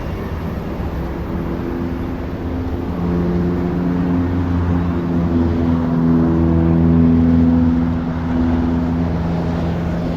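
Whoosh high-speed electric multiple unit passing on the line: a low, steady running hum with a few low tones, swelling to its loudest past the middle. The wheel-on-rail sound itself is barely audible.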